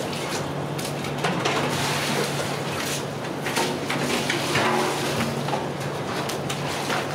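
A knife picking and cutting the stitched seam of a woven plastic sack, with irregular scratchy snips and rustling of the sack, over a steady low hum.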